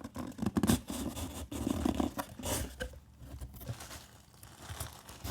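A cardboard box and its packing being opened by hand: irregular tearing, crinkling and scraping, busiest in the first few seconds and quieter after.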